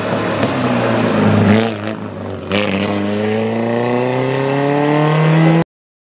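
Opel Kadett rally car's engine revving hard through a bend: the revs climb, ease off for a moment about two seconds in, then the car pulls hard with the pitch rising steadily until the sound cuts off abruptly near the end.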